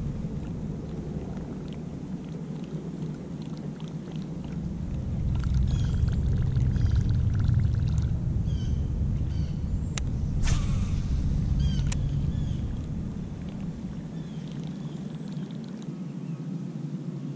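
Outdoor ambience with a steady low rumble that swells in the middle. Birds chirp repeatedly over it, and a few sharp clicks sound around the middle.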